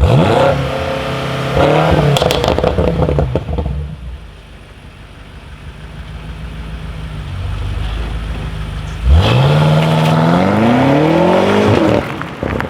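BMW M5 Competition's twin-turbo V8 revving hard through its exhaust twice: a sharp rev at the start that holds and then drops off with crackles around three seconds in, and a longer climbing rev from about nine seconds in that cuts off abruptly near the end.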